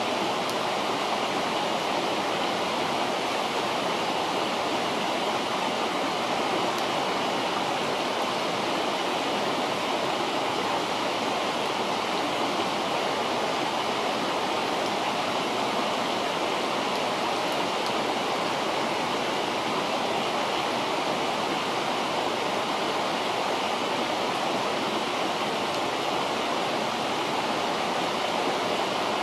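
River water rushing over rocks, a steady, even flow.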